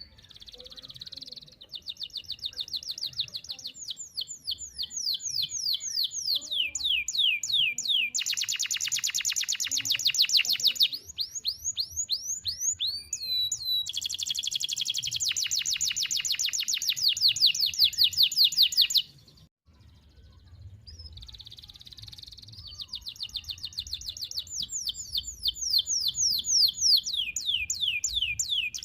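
Domestic canary singing long rolling trills: runs of fast, evenly repeated notes, some sliding downward, changing from one phrase to the next every few seconds, with a brief pause about two-thirds of the way through before the song resumes.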